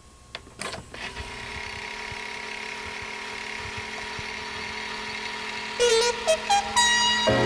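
Video cassette player starting playback: a few mechanical clicks as play engages, then a steady motor hum with tape hiss. Near the end a short run of rising notes begins.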